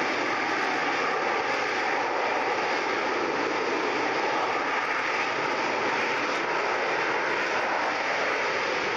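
Harrier jump jet's Rolls-Royce Pegasus vectored-thrust turbofan holding the aircraft in a hover: steady, even jet noise with a faint high whine, neither rising nor falling.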